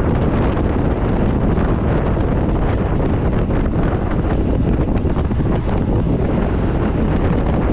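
Wind buffeting the microphone of a camera on a road bike riding at speed: a steady, loud rush of noise, heaviest in the low end.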